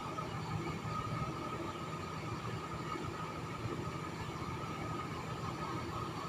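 Bus engine running steadily, with a steady high hum over it.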